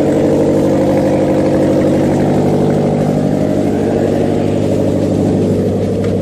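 Subaru EJ20 2.0-litre flat-four engine running steadily on its first run after being swapped in, loud because its exhaust is disconnected. Its idle has not yet been calibrated.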